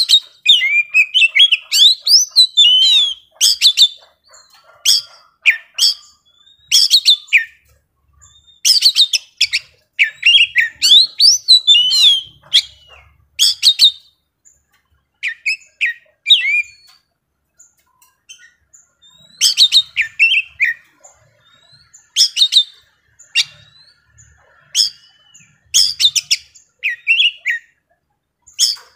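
Male Oriental magpie-robin singing vigorously: bouts of sharp clicking notes and fast whistled, sliding phrases, with a pause of a few seconds around the middle before the song picks up again.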